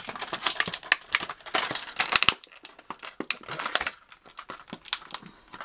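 Clear plastic blister packaging and accessory bag crinkling and crackling as they are handled. A dense run of sharp crackles eases off a little past halfway into scattered clicks.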